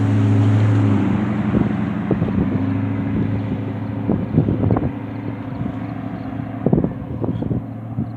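Freight train passing: a low diesel locomotive drone, strongest in the first second and then fading, with clusters of sharp clicks every second or two from the wheels passing over rail joints.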